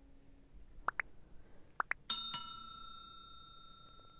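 Subscribe-button overlay sound effect: two pairs of quick clicks, then a bell dinging twice in quick succession about two seconds in and ringing out for a couple of seconds.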